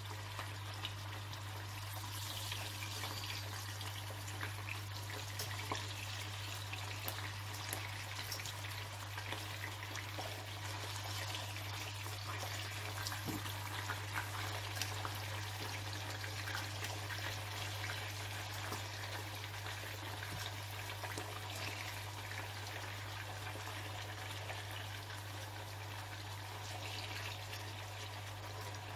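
Chicken pieces frying in hot olive oil in a pan, a steady sizzle full of small crackles and pops. A low steady hum runs underneath.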